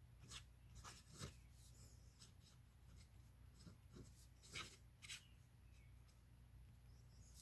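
Faint scratching of a vintage Wahl fountain pen's gold nib on paper, in short separate strokes as script is written, the loudest scratch a little past halfway.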